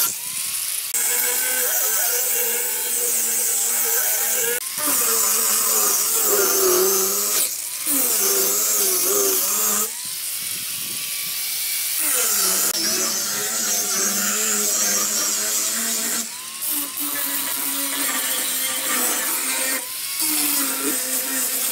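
Small electric angle grinder fitted with a sanding disc, sanding pine pallet boards: a steady high motor whine whose pitch wavers, broken by a few short gaps.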